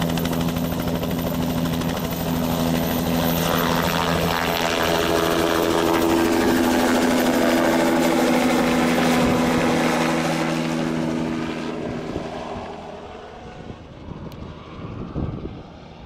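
Helicopter taking off: rotor and engine running loud and steady as it lifts off and climbs overhead, its pitch shifting upward a few seconds in. Then the sound fades as it flies away, dying down about three-quarters of the way through.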